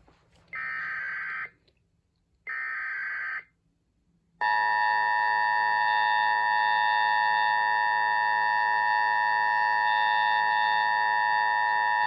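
Sage EAS ENDEC sending an Emergency Alert System test: the last two of its three SAME digital header bursts, each about a second long with a second of silence between them, then the steady two-tone EAS attention signal, which starts about four seconds in and holds unbroken for about eight seconds. The header encodes a tornado warning.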